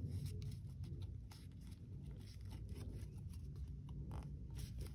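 Faint rustling and small crinkles of thin 80 gsm paper being pinched and creased by fingers into an origami fold, over a low steady background hum.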